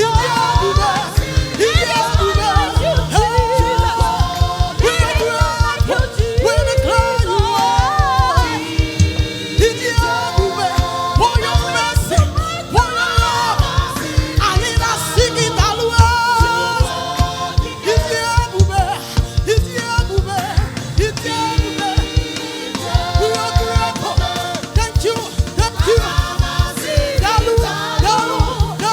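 Church choir singing a gospel song over a steady, quick beat.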